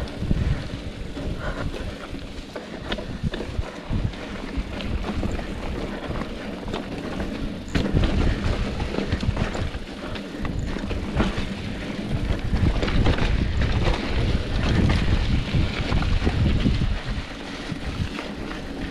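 Wind buffeting the microphone while riding a mountain bike, with the bike rattling and knocking over rough trail; it grows louder about eight seconds in.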